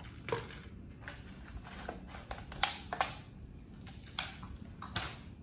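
Scattered light clicks and taps of plastic drink cups and ice being handled, over a low steady hum.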